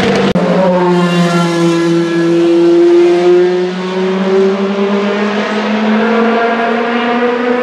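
Racing V8 engine of a Le Mans hypercar, the Vanwall Vandervell 680's Gibson GL458, running hard at high revs. Its note climbs slowly as it accelerates, then holds steady.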